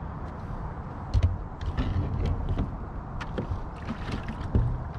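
Scattered clicks and knocks, with low thumps about a second in and near the end, as a plastic bucket is handled and set down inside a plastic kayak.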